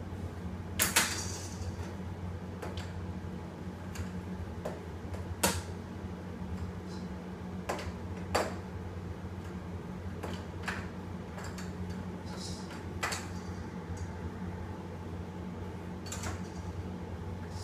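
Scattered sharp plastic clicks and knocks from a baby walker's toy tray being handled and the walker shifting on a vinyl tile floor, over a steady low hum; the loudest knocks come about a second in and at about five seconds.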